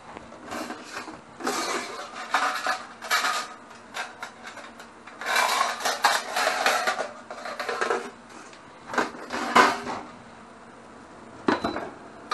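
Stainless steel trays and pans clattering and scraping together as they are rummaged through and one is pulled from a cabinet rack, in several irregular bursts, with a sharp knock near the end.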